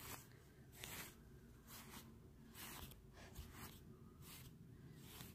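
Near silence with faint, irregular rustling from toys and cloth being handled, and a small click at the start.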